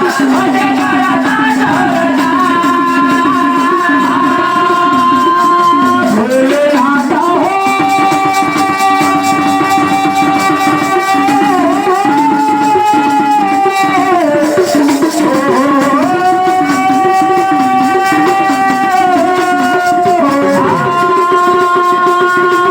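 Devotional song to Mahadev (Shiva): long held, melismatic sung notes that glide from one pitch to the next, over a steady rattling shaker-type percussion.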